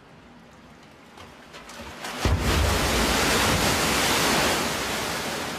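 A man-made tsunami surging down a large wave flume: after a faint, quiet stretch, a sudden loud rush of water with a deep rumble starts about two seconds in, then slowly eases.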